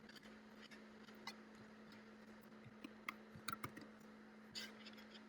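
Faint computer mouse clicks, a scattered handful with a quick cluster around the middle, over a steady low electrical hum.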